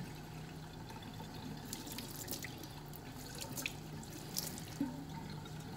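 Kitchen faucet running a thin stream into a stainless steel sink, with scattered small splashes and drips as a kitten is wet under it.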